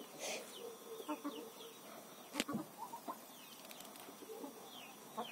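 Hens clucking softly now and then, with a single sharp knock about two and a half seconds in.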